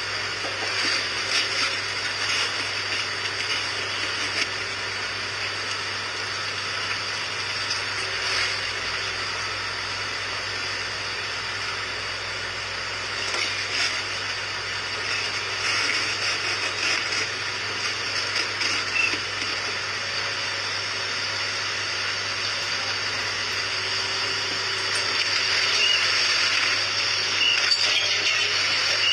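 Hydraulic pile breaker squeezing a concrete pile head apart: concrete cracking and broken chunks clattering down over a steady machine hum.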